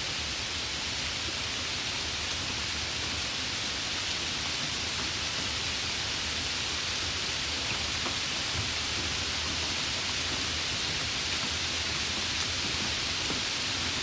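Steady, even rain hiss, with a few faint single drop ticks.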